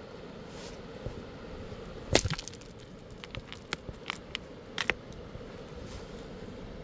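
Hard river stones clacking against each other as they are handled and shifted among the cobbles: a loud clack about two seconds in, a run of lighter clicks, and another sharp clack near five seconds, over a steady rushing background.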